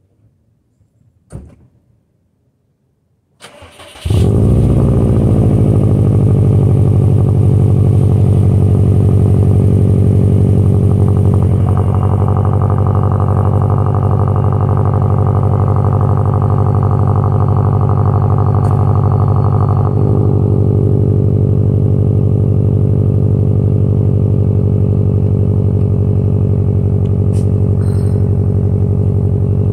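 2012 Subaru WRX STI's turbocharged 2.5-litre flat-four, on a freshly built Type RA shortblock, cold-starting: a faint click, a brief crank about three and a half seconds in, then it catches and settles into a loud, steady cold-start idle heard at the exhaust tips. Around twelve seconds in the idle takes on a brighter, harder edge that falls away again at about twenty seconds.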